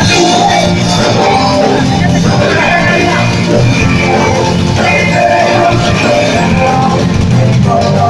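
Loud rock music with a drum kit, playing steadily.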